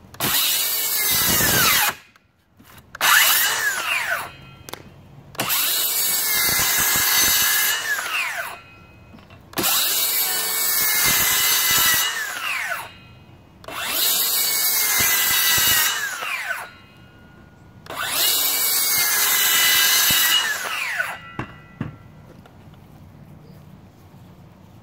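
DEWALT Flexvolt 60V cordless circular saw cutting through OSB board six times in a row. Each cut is a loud burst of motor whine and blade tearing through wood, ending in a falling whine as the blade spins down after the trigger is released.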